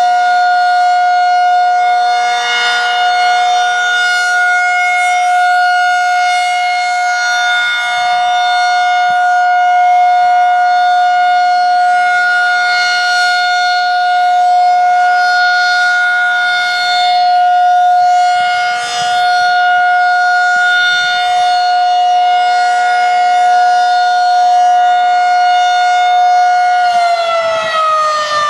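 Federal 2001-SRN dual-tone outdoor warning siren sounding a steady alert, its two-note chord held at full pitch with mild swells in loudness. About a second and a half before the end, the pitch starts to fall as the siren begins to wind down.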